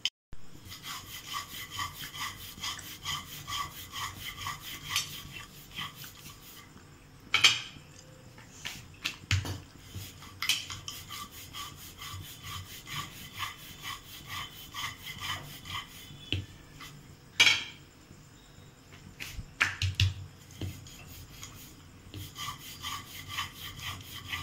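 Wooden rolling pin rolled back and forth over thin maida dough on a round rolling board: a rhythmic rubbing of about two to three strokes a second, with a few sharp louder knocks now and then.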